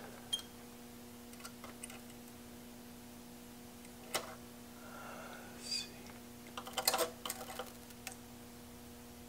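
Faint steady mains hum from the powered-up 1930 Philco Model 20 tube radio on the test bench. Scattered light clicks and taps come through it, with a short cluster about seven seconds in, as test probes are handled on the chassis.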